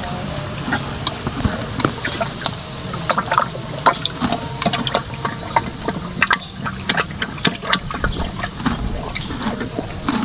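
A horse drinking from a water trough: wet slurping and sucking, with many irregular small clicks and splashes.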